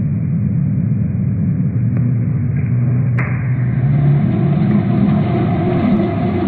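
Loud, steady low rumble, with a single sharp click about three seconds in.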